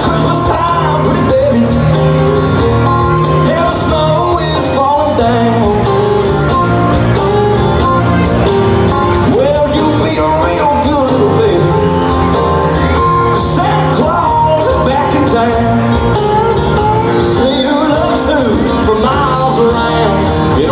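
Live country music: a band playing, with a male lead singer.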